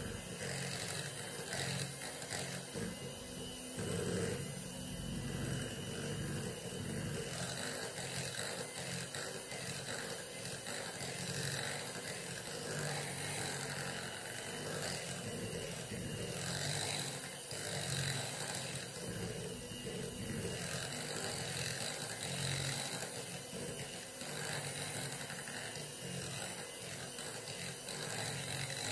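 White electric hand mixer running steadily, its twin beaters whisking a thick cream-cheese cheesecake batter in a glass bowl.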